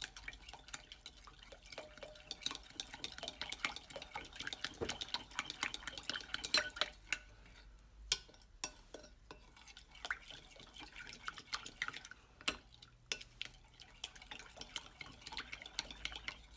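Metal spoon stirring yeast and sugar into warm water in a glass bowl, clinking and scraping against the glass in quick, irregular strokes, with a short lull about eight seconds in.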